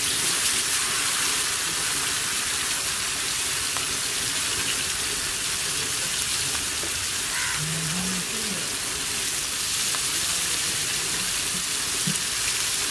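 Masala-marinated fish steaks sizzling in oil on a flat tawa griddle, a steady frying hiss.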